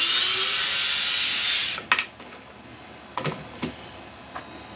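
Vessel cordless ball-grip screwdriver motor running under load as it turns a long screw in raw pine, a steady hiss with a whine that rises in pitch, stopping about two seconds in with a click. A few light knocks follow as the driver is set down on the board.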